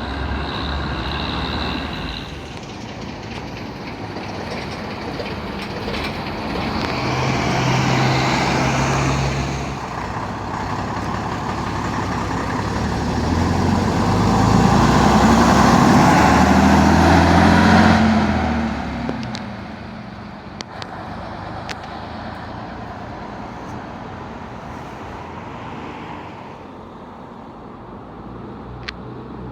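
A vintage bus engine running and moving past, growing louder to a peak for several seconds past the middle, then falling away sharply.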